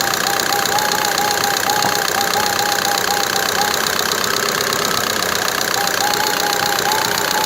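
Opel Vectra C engine running while the steering wheel is turned, with a rapid repeating knock from where the inner tie rod joins the steering rack; the knock pauses for about two seconds midway. The owner fears a worn steering rack, since the tie rods and tie-rod ends were checked and found fine.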